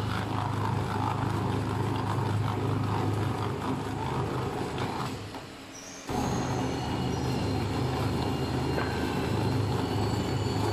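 A rebar rib-peeling and thread rolling machine running: its electric motor and gearbox hum steadily while the rolling head peels the ribs and rolls a thread onto a rebar end. About halfway the sound sags for a moment, then comes back abruptly, with a thin high squeal of metal working on metal.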